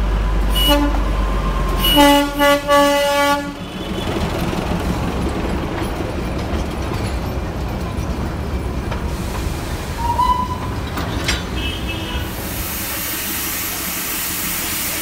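Darjeeling Himalayan Railway toy train locomotive sounding its whistle: a short toot about a second in, then a longer broken blast about two seconds in. The train's running noise follows, and steam hissing sets in near the end.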